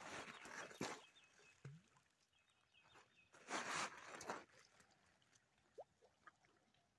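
Feet crunching and scuffing on loose river gravel during two stone-skipping throws, a short burst at the start and a louder one about three and a half seconds in.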